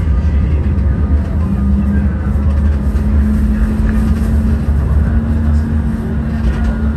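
Tram running along street track, heard from inside its cab: a steady low rumble with a traction-motor hum that steps up slightly in pitch about two seconds in and then holds.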